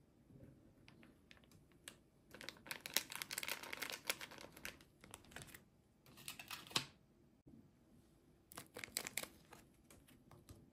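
Soggy toy packaging crinkling as fingers work it apart in a bowl of water: one long stretch of crinkling, then two short bursts.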